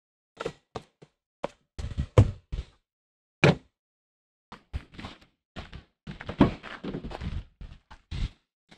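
Objects being handled and set down on a truck's ribbed tailgate liner: a run of separate knocks and thunks, with a denser stretch of rustling in the second half.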